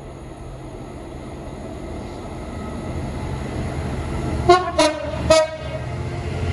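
Class 66 diesel-electric locomotive approaching, the low rumble of its EMD two-stroke diesel engine growing louder. About two-thirds of the way in it sounds its two-tone horn in three short toots, one lower note then two higher ones.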